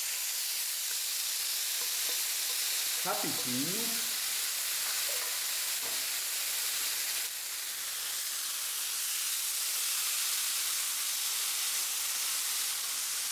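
Chopped eggplant filling sizzling steadily as it fries in a hot frying pan with a little olive oil.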